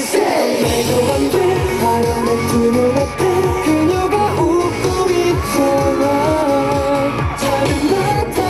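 K-pop dance track with singing over a steady, driving drum beat, opening with a falling synth sweep.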